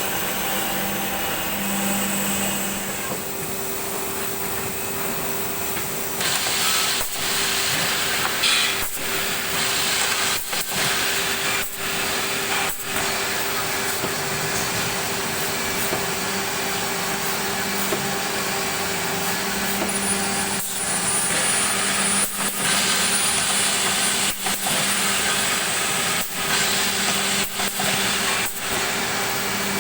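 CD-612 six-sided CNC panel drilling machine running: steady machine whir with a constant hum, briefly dipping now and then.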